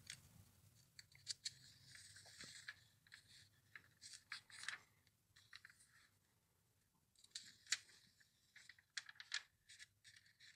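Glossy catalog pages being turned and handled: faint, crisp paper rustles and flicks, with a short pause a little past halfway.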